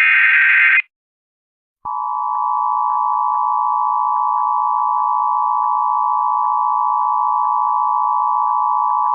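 Emergency Alert System broadcast tones: the last burst of the digital SAME header, a harsh data screech lasting under a second. About a second later the EAS attention signal starts, a loud steady dual tone that is held through the rest and announces an emergency alert.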